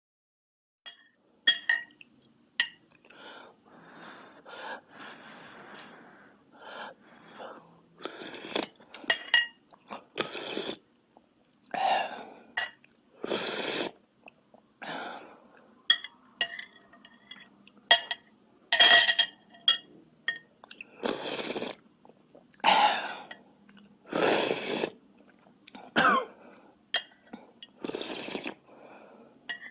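Close-up eating sounds: a string of short, hissy mouth noises about half a second to a second long, with sharp clicks scattered among them, starting about a second in.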